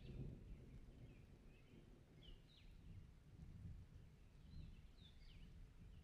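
Near silence: a faint low rumble with small birds chirping softly, short calls every second or so.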